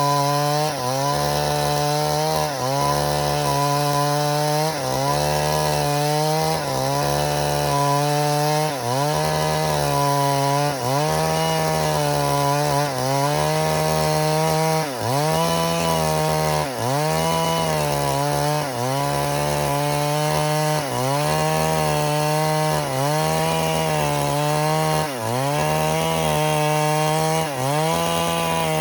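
Stihl MS382 two-stroke chainsaw running at high revs while cutting through dead wood. The engine pitch dips briefly about every two seconds as the chain bogs under load, then climbs back.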